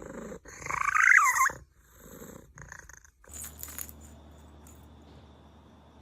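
A cat's drawn-out yowl that rises and falls in pitch, followed by a few shorter, fainter cries. About three seconds in these stop and a steady low hum takes over.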